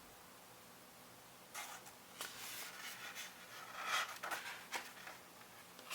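Paper rustling and crinkling in short irregular bursts that begin about a second and a half in, after a quiet start.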